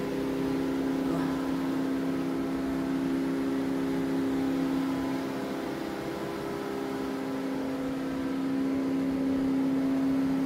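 Large commercial refrigerator's cooling machinery humming steadily, a constant hum of several held tones.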